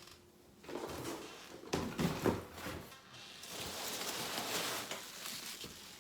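Packing material rustling and scraping, with a few light knocks, as a well-packed shipping box is unpacked by hand.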